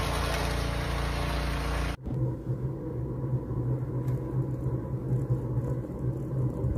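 A walk-behind snowblower's small engine running steadily while it throws snow. About two seconds in it cuts off abruptly, and a lower, steady rumble with a faint thin whine follows.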